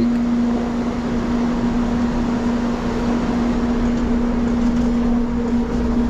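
Sawmill carriage hydraulic system cranked up and running with a steady hum over a low rumble. It is a short test run to see whether tightening the set screws on a leaking hydraulic valve has stopped the leak.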